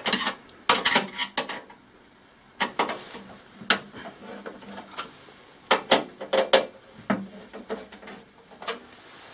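Irregular metallic clicks and clatter from a screwdriver working the screws of a desktop PC case, in several short bursts with pauses between.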